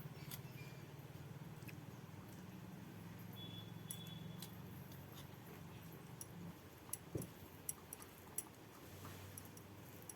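Faint eating sounds: chewing, with a few sharp clicks in the second half. Underneath is a low steady hum that fades about two-thirds of the way through.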